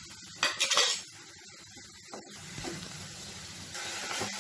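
A spatula stirring chopped onions frying in oil in a steel pan: a burst of scraping against the pan about half a second in, then a steady sizzle that gets louder near the end.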